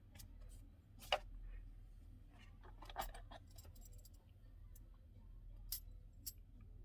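A few faint, scattered clicks and taps of the peeler and its packaging being handled, the sharpest about a second in and two close together near the end.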